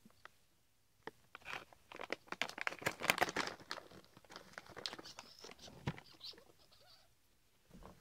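Plastic ferret-treat pouch crinkling and rustling as a hand rummages inside it, a dense run of crackles that is loudest about three seconds in, with a few short high squeaks around five seconds in.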